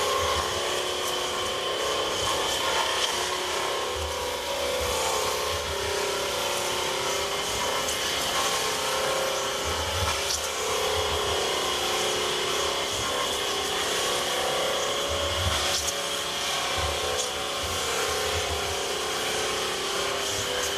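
Rotary barrel grinder rasping the inside wall of a wooden cask: a steady scraping of the cutting head on the staves over a constant motor hum and high whine, with irregular low rumbles.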